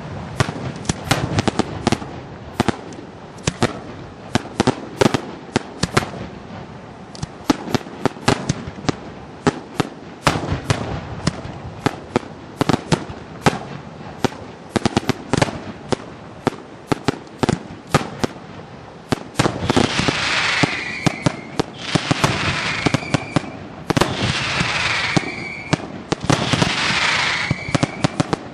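Daytime aerial fireworks: a rapid, continuous string of sharp bangs and cracks from bursting shells, several every second. From about two-thirds of the way through, a falling whistle rises above the bangs four times, roughly every two and a half seconds.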